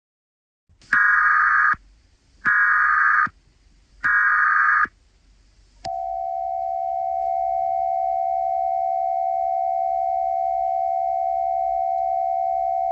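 Emergency Alert System header: three short, loud, buzzing data bursts about a second and a half apart, then a long steady alert tone starting about six seconds in, signalling an alert message about to be read.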